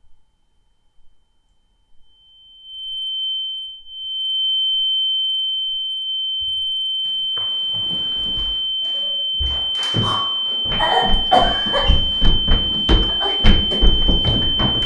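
A steady, high-pitched ringing tone that swells in about two seconds in and then holds on one pitch, like a sound-design ear-ringing effect. From about seven seconds it is joined by irregular muffled thumps and jumbled noise that grow busier toward the end.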